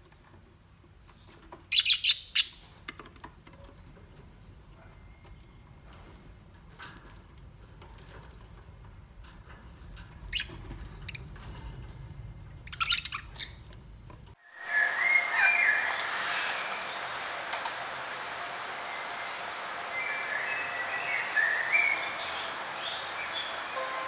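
Small birds chirping: scattered short chirps, with a few loud sharp ones about two seconds in and again about thirteen seconds in. Partway through the sound changes abruptly to a busier chorus of many birds chirping over a steady hiss.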